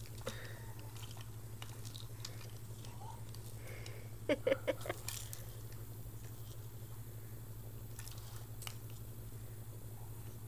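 Teething baby mouthing and chewing a plastic toy: soft chewing and small plastic clicks, with a quick run of three or four louder clacks about four and a half seconds in.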